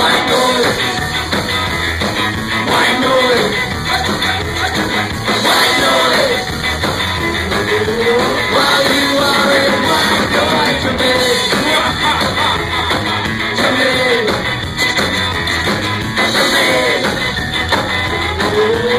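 Ska-punk band playing live at full volume: guitars, bass and drums with a sung vocal melody over them.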